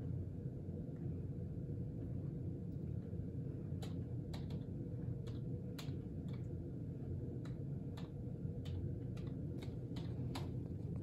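Keys tapped on a Logitech wireless keyboard with a built-in touchpad: a string of light, irregular clicks starting about four seconds in, over a steady low room hum.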